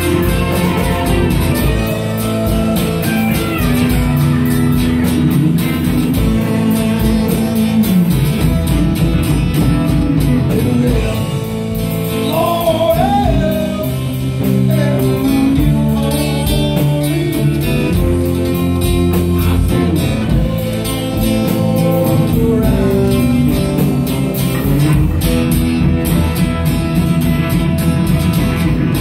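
Live band playing amplified electric guitars over a drum kit, with singing at times.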